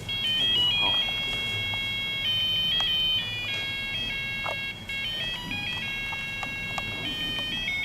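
A homemade microcontroller alarm clock's music-box function playing a simple electronic melody: high beeping notes that step from one pitch to the next.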